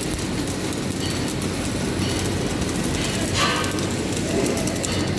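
MIG (wire-feed) welding arc running on a steel fillet joint: a steady, dense crackle with spatter.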